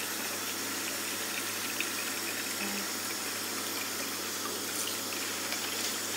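Water running steadily into a kitchen sink, with faint drips and trickles as water is poured by hand over a baby in a plastic baby bathtub.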